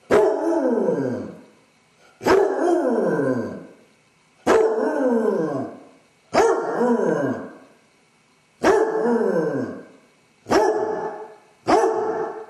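Basset hound baying: seven loud barks, each drawn out into a howl of about a second that slides down in pitch, coming roughly every two seconds. It is the distress call of a dog left home alone, which the owner takes for separation anxiety.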